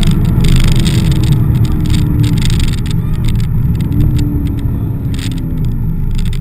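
Corvette's V8 engine heard from inside the cabin while driving on a wet track, over tyre and spray hiss from the wet road. The engine note drops about halfway through, climbs again, then drops once more near the end.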